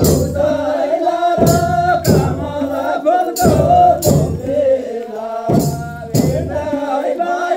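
Gurung folk song performed live for a dance: a voice singing over a drum whose strikes come in pairs about every two seconds, with jingling percussion.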